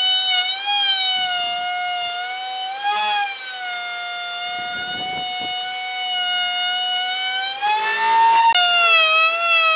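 High-speed electric power tool motor whining steadily, its pitch wavering slightly under load. Bursts of cutting noise come about halfway through and again near the end, followed by a sudden dip in pitch.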